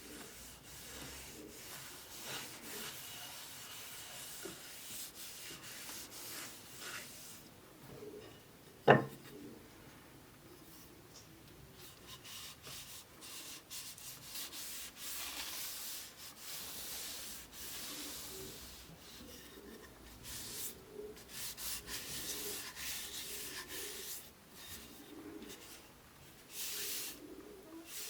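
Irregular strokes of rubbing or sanding against wood, with a single sharp knock about nine seconds in.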